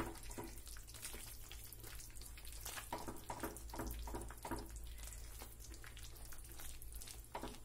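Silicone whisk stirring thick, sticky cornflour halwa in a nonstick pan: soft wet squelches and clicks over a low steady hum.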